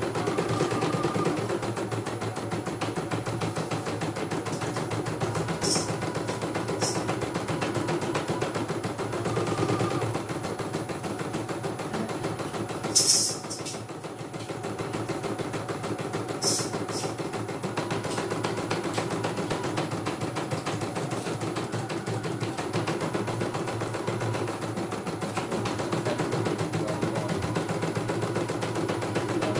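CNY E900 computerized embroidery machine stitching a design: a steady, rapid needle-and-mechanism clatter as the hoop is driven about. A few short, sharp high-pitched noises sound over it, the loudest about 13 seconds in.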